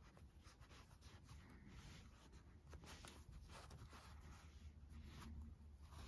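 Near silence with faint rustling and light scratching: a yarn tail being drawn through crocheted fabric with a needle.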